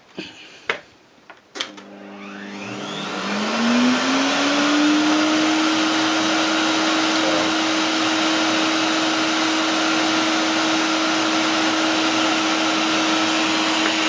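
A few switch clicks, then the Proxxon CW-matic workshop vacuum cleaner's motor starts about a second and a half in. It whines up in pitch over about two seconds and runs steadily at full speed. It is loud, about 87 dB on a sound meter, well above its rated 75 dB.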